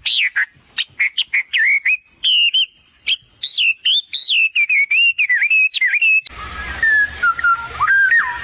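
Bird calls: a quick series of high, gliding chirps and whistles. After about six seconds this gives way to lower, sliding whistled notes over a background hum.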